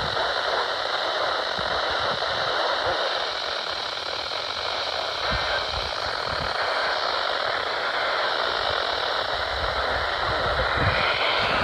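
Steady radio static hiss from a weather radio receiver tuned to a NOAA Weather Radio broadcast, with no voice on the channel.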